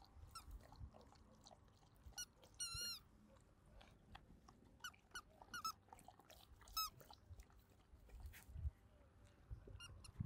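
Rubber squeaky toy squeaking faintly as a Samoyed chews it: short, high squeaks at irregular intervals, with one longer, wavering squeak about three seconds in.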